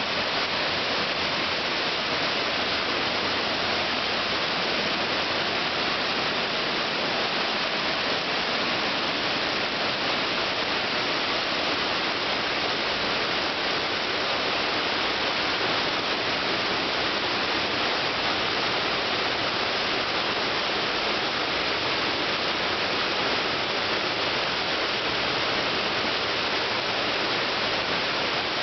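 A 32 m waterfall pouring down rock into a pool in a grotto: a steady, even rush of falling, splashing water.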